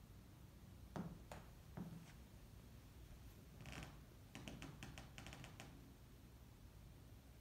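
Near silence: room tone, with a few faint taps about a second in and a short patter of soft clicks and rustling near the middle.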